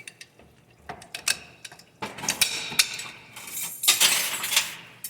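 A few light metal clicks, then a longer run of clinking and scraping steel as a snap ring is worked out of its groove in a 4L60E automatic transmission's forward clutch housing.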